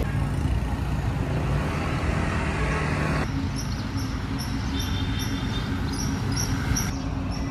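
Steady low rumble of a running vehicle. About three seconds in it cuts abruptly to a steadier hum, and short high chirps then repeat a few times a second.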